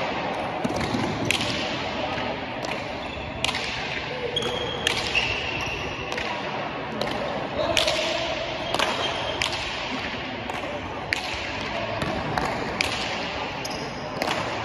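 Basque hand-pelota rally: the hard ball is smacked by bare hands and cracks against the frontón's walls and floor, a string of sharp smacks about once or twice a second, each ringing on in the hall's echo.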